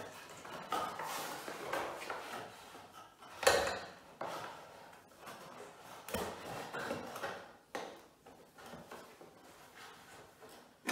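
Plastic Scalextric track sections being handled and pressed into plastic support piers: rubbing and scraping with a few sharp knocks, the loudest about three and a half seconds in and another about six seconds in.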